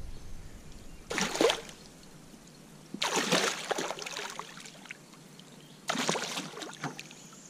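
A hooked bowfin (dogfish) thrashing at the water's surface beside the boat, splashing in three bursts: a short one about a second in, a longer one around three seconds in, and another near six seconds.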